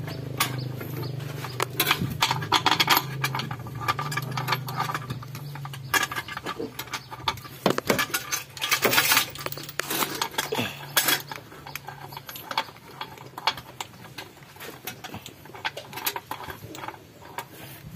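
Irregular metallic clinks and knocks of hand tools and bolts being handled in a car's engine bay, over a low steady hum that fades out about twelve seconds in.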